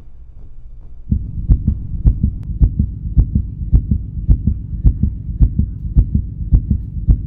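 Heartbeat sound effect: a steady lub-dub beating, a double beat a little under twice a second, that starts abruptly about a second in.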